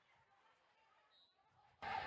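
Near silence, which cuts off suddenly near the end when the hall's background noise of voices comes back.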